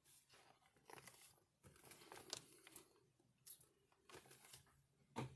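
Near silence: quiet small-room tone with faint, scattered rustles and a few soft clicks.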